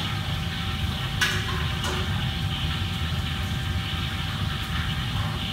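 Steady hum and hiss of a commercial kitchen's running machinery, with a thin constant whine over a low rumble. A couple of faint knocks come about a second and two seconds in.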